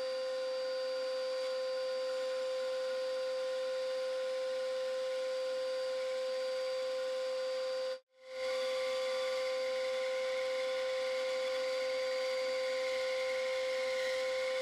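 Bandsaw running with a steady whine. It drops out briefly about eight seconds in and comes back with a harsher edge as the blade cuts into thick plywood.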